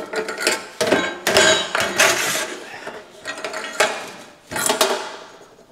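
Metal tube scraping and clanking as it is slid off a rusted shepherd hook rod and set down on a workbench. There are several sharp knocks and scrapes, each followed by brief metallic ringing, and they die away near the end.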